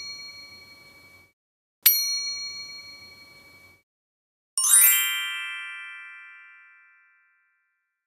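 Bell-like 'ding' sound effect: the tail of one strike fades out, then the same clear ding strikes again about two seconds in and rings away over about two seconds. About halfway through, a sparkle sound effect of many bright chiming bell tones starts together and fades over about two and a half seconds.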